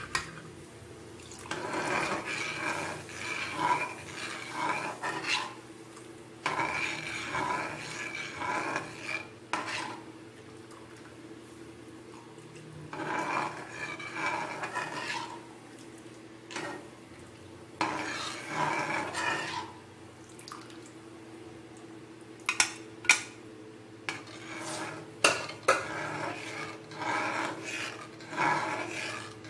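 A spatula stirring and scraping sauce around an aluminium wok in repeated bouts of a second or two, with a few sharp knocks against the pan about three quarters of the way through.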